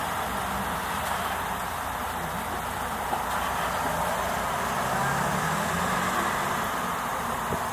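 Steady traffic noise with a vehicle engine running, its low drone a little louder about five seconds in.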